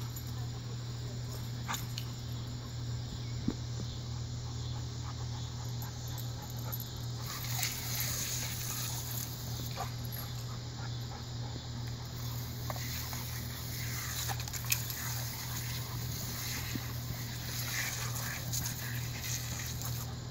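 Oscillating lawn sprinkler spraying water with a hiss, which grows louder about a third of the way in, while a dog makes small sounds as it plays in the jets. A steady low hum runs underneath.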